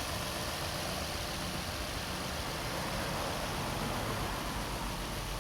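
2014 Nissan Maxima's V6 idling steadily, running smooth with no shake or misfire on fresh spark plugs and new ignition coils.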